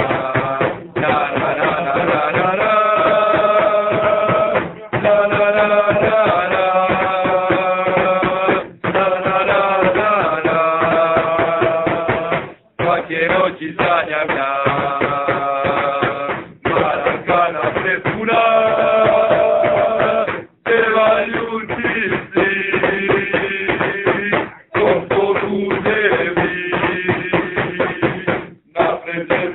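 Football supporters singing a terrace chant together over a beating drum, in phrases with long held notes and short breaks between them.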